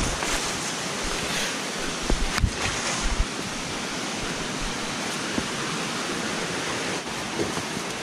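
Steady rush of falling water from a nearby waterfall or forest stream, with a couple of light knocks about two and a half seconds in.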